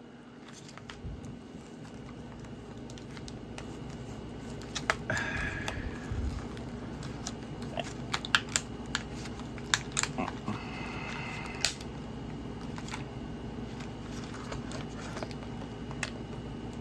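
Scattered clicks and short scrapes and rustles of plastic toy packaging being handled as boxed toy figures are worked free, over a steady low hum.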